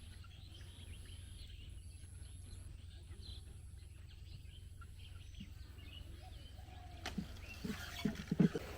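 Quiet rural ambience: faint bird chirps over a steady low rumble, with a few knocks near the end.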